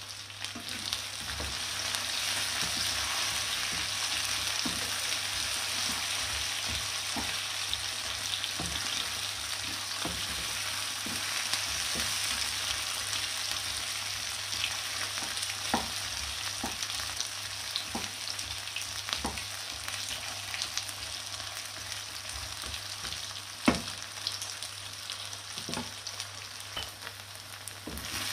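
Food sizzling steadily in hot oil in a frying pan, stirred now and then with light clicks of a utensil against the pan, and one sharper knock near the end.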